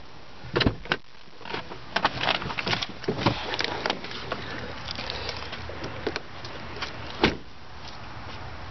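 A 2009 Ford Escape's door being opened, with clicks and knocks as someone climbs out of the car, then one solid thud about seven seconds in as the door is shut.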